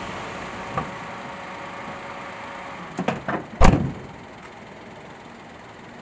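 A car door being closed: a faint click just under a second in, two small knocks about three seconds in, then the solid thump of the door shutting about half a second later. A steady hiss sits underneath.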